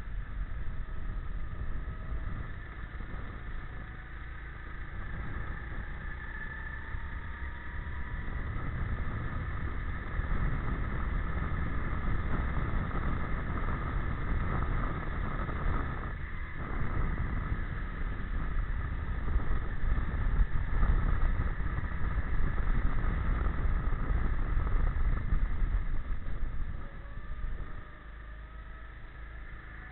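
Go-kart engine heard onboard while lapping a track, its pitch rising and falling with the throttle through the corners, over a heavy low rumble. It drops out for a moment about halfway and is quieter near the end.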